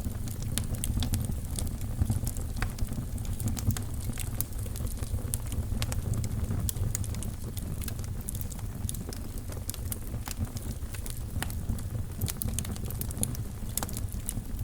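Wood fire burning in a fireplace: a steady low rumble of flames with frequent sharp crackles and pops throughout.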